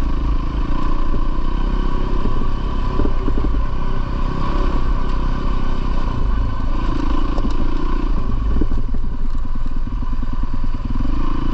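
A 450 cc four-stroke single-cylinder dirt bike engine running under way, its revs rising and falling as it is ridden.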